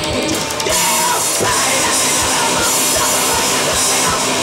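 Live rock band playing loudly: electric guitar and bass over an electronic drum kit, with a steady drum beat.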